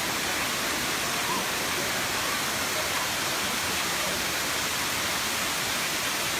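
Waterfall of Erawan Falls' seventh tier, water pouring and splashing in a steady, even rush.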